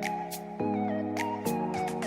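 Background music: sustained chords changing about every second, a gliding melody line on top and regular percussion hits.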